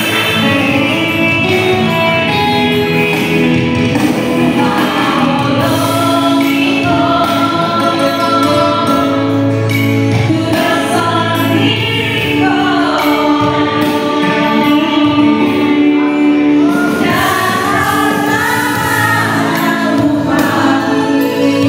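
A small group of women singing a song together in harmony into handheld microphones, amplified through PA speakers.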